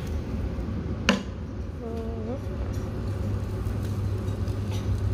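Cooking at an omelette station: one sharp knock about a second in, from the frying pan and spatula being handled, over a steady low hum. A brief hummed voice sound comes around two seconds in.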